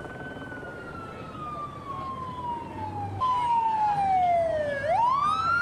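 Emergency vehicle siren wailing: a slow falling tone, then louder from about three seconds in, dropping lower and sweeping quickly back up near the end.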